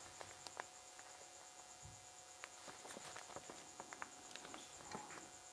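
Faint scattered ticks and taps of a black permanent marker dabbing dots onto a small paper cut-out.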